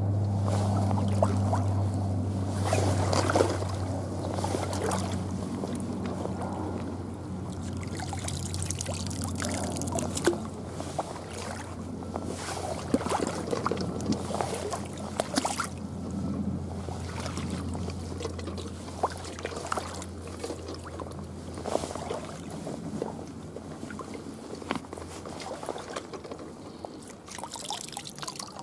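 Water sloshing and splashing in irregular bursts, with scattered knocks and rustles, as people wade and sweep a hand net through a shallow creek and its weeds. A low steady hum sounds under it at the start and fades away.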